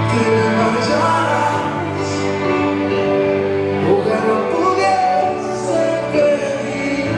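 Slow ballad with singing played loudly over the hall's sound system for a dance.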